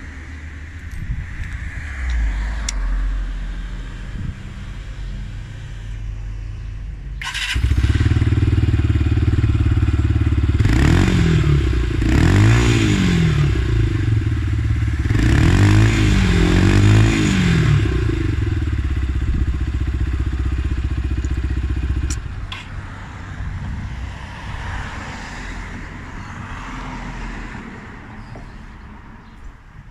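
Lexmoto Tempest 125's single-cylinder four-stroke engine starting up about seven seconds in and idling. It is blipped up and back down twice in quick succession, then twice again, and is switched off abruptly a few seconds later.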